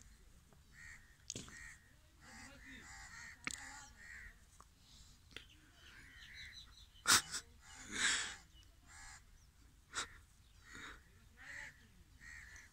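Crows cawing repeatedly in short harsh calls while two dogs play-fight. A loud sharp snap comes about seven seconds in, a harsher rasping burst just after it, and another sharp snap near ten seconds.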